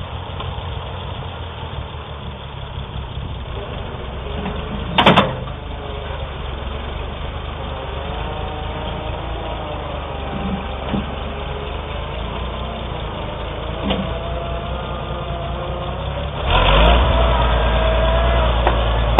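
Oliver 770 tractor engine running at idle, with one sharp knock about five seconds in; about sixteen and a half seconds in the engine steps up and runs louder.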